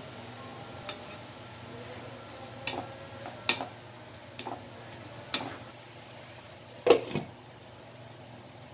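A plastic spatula stirring minced chicken in a non-stick frying pan, knocking against the pan several times. A louder clatter about seven seconds in, as a glass lid is set on the pan.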